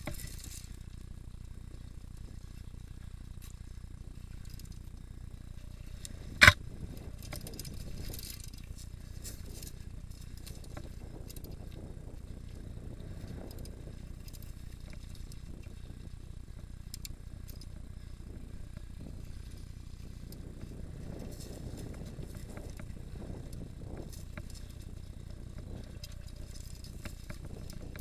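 Mountain bike rattling and clicking as it rides over rough rock slabs, over a steady low rumble. One sharp knock about six seconds in is the loudest sound.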